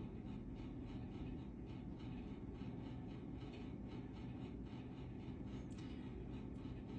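Steady low background hum with faint, regular ticks.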